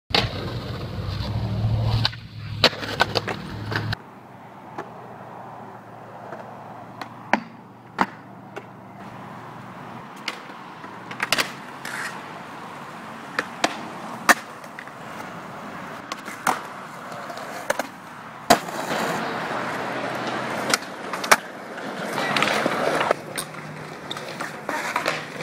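Skateboard wheels rolling on concrete, with many sharp clacks of the board popping, landing and striking rails and ledges. A low rumble sits under the first four seconds.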